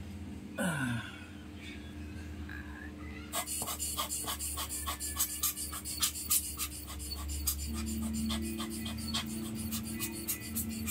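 Quick scratchy rubbing strokes, several a second, from a thin tool worked around inside the barrel of a dismantled Nikon 200-500mm f/5.6 lens while it is cleaned of fungus. The strokes start about three seconds in.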